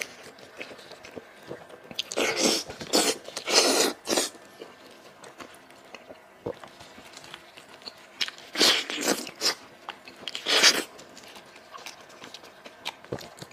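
Close-up eating sounds of a person tearing and chewing meat from a spicy braised sheep's head: small wet clicks of chewing and meat pulling apart, with four louder sucking noises about two, four, nine and eleven seconds in.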